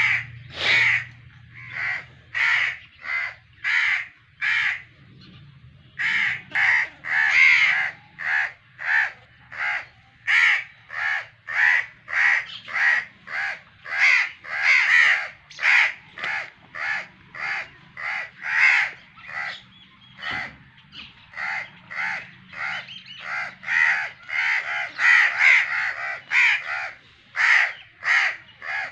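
Birds calling over and over: short calls, about two a second, with a pause of about a second some five seconds in. A faint low hum runs underneath.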